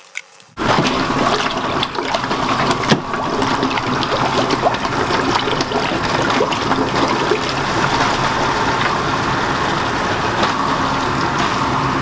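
A 1/6-horsepower utility sump pump running submerged in a bucket, with liquid rushing and splashing back into the bucket from the return hose. It is circulating vinegar through a tankless water heater in a descaling flush. The rushing starts about half a second in and stays steady.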